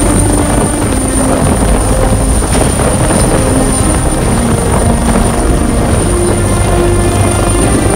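AgustaWestland AW139 twin-turboshaft helicopter lifting off and hovering low close by. Its five-bladed rotor and engines make a loud, steady noise, with a constant high-pitched whine over it.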